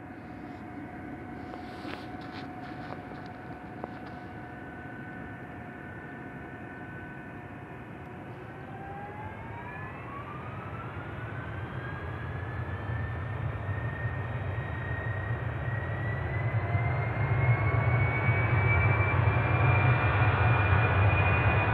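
Tupolev Tu-204's two turbofan engines spooling up to take-off thrust: a steady whine that starts rising in pitch about nine seconds in and keeps climbing, with a deep rumble building underneath as the jet begins its take-off roll. The sound grows steadily louder.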